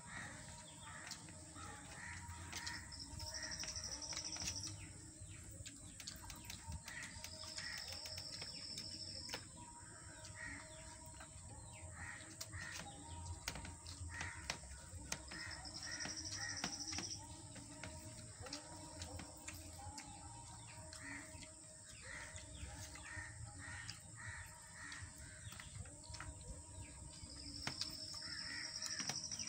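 Crows cawing and other birds calling, with a high steady note that comes and goes about four times, each lasting around two seconds. Soft clicks and smacks of rice and crab gravy being mixed and eaten by hand run underneath.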